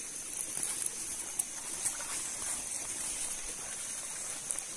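Forest stream water running steadily over rocks, with a constant high hiss and a few faint small clicks.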